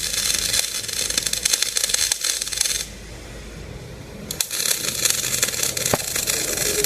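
Electric arc welding: the arc hisses and crackles for nearly three seconds, breaks off, then is struck again about a second and a half later and crackles on.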